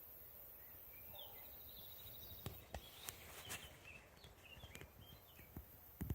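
Faint outdoor ambience with small birds chirping in short calls, and a few sharp clicks around the middle.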